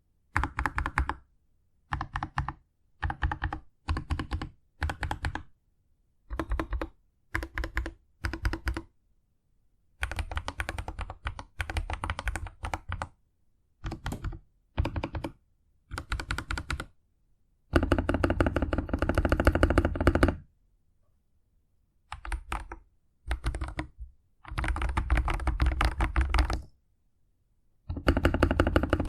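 Royal Kludge RK100 mechanical keyboard with lubed MMD Holy Panda tactile switches and PBT keycaps being typed on in bursts of rapid keystrokes with short pauses between them; the longest, fastest runs come in the second half.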